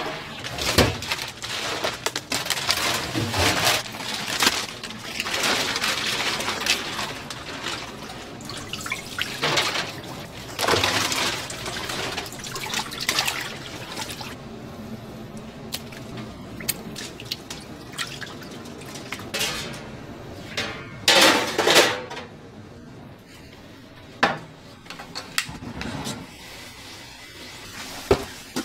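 Water splashing and pouring, with occasional clinks of dishes and pans.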